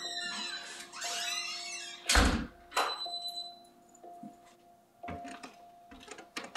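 A house's front door being pushed open and swung shut, closing with a loud thud about two seconds in, then a few light footsteps on a wooden floor, over a steady low hum.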